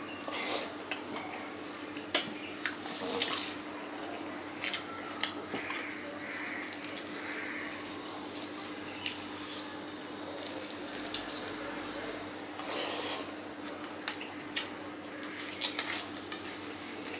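Wet eating sounds of rice and curry eaten by hand: irregular mouth smacks and chewing, with fingers squishing and mixing rice on a steel plate. A steady low hum runs underneath.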